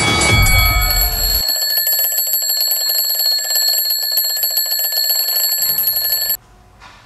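Mechanical twin-bell alarm clock ringing rapidly and steadily, cut off suddenly near the end as a hand silences it. Music breaks off about a second and a half in.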